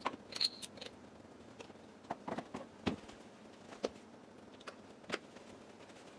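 Scattered light knocks and clicks of someone moving about and handling things in a kitchen, with a short high squeak just after the start.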